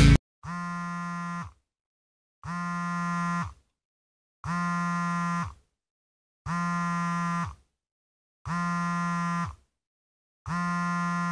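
An alarm buzzing in six pulses, each about a second long and about two seconds apart, the first a little quieter than the rest.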